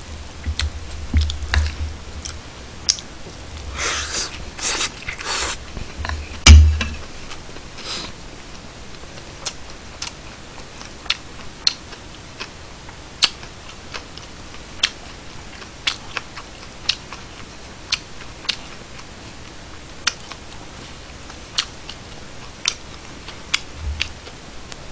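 Close-miked eating: a fork scraping through food in a bowl and chewing, with low thumps in the first seven seconds and the loudest knock about six and a half seconds in. After that, a run of sharp clicks, roughly one a second.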